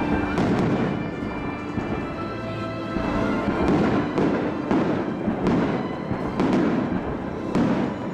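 Aerial firework shells bursting close by: a bang near the start, then a run of bangs about once a second, each trailing off. Faint show music from distant speakers plays underneath.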